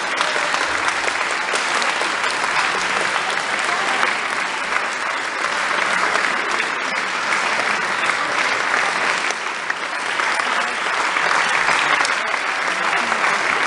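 Audience applauding steadily after a piece of music has finished.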